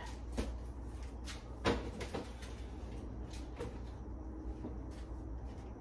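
A refrigerator being loaded: a few scattered knocks and clunks of its door and shelves as the covered turkey is put away, the sharpest about one and a half seconds in, over a steady low hum.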